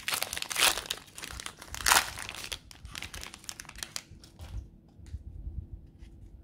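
Wrapper of a Select AFL Footy Stars trading card pack crinkling as it is handled and opened, with two louder crackles in the first two seconds, then thinning to scattered faint clicks as the cards are handled.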